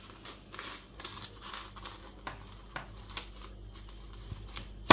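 Plastic cling film crinkling and rustling as it is stretched over a glass baking dish and cut from the roll with scissors, with a sharp click at the very end.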